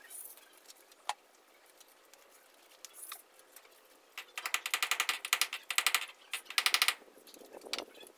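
Two bursts of rapid, even mechanical clicking, each about a second long, starting about four and a half seconds in. A single sharp knock sounds about a second in.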